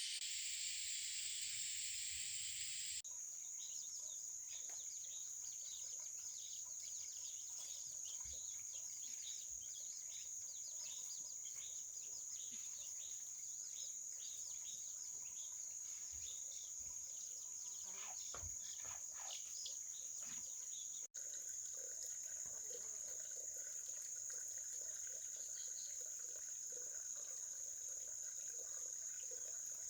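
Steady high-pitched drone of insects such as crickets or cicadas, with scattered light clicks and a few soft knocks around 18 seconds in. A broad hiss covers the first three seconds, and the sound drops out for an instant about 21 seconds in.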